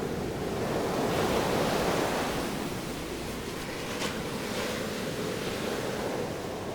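Rushing noise of waves and wind that swells and eases, with one faint click about four seconds in.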